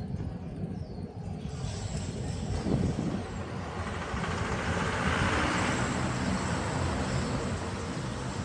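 Riding noise picked up by a bicycle-mounted camera: a steady low rumble with wind hiss, the hiss swelling about halfway through and then easing.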